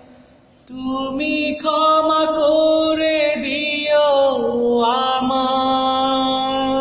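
A man singing long drawn-out wordless notes, starting about a second in, with a slide down in pitch partway through.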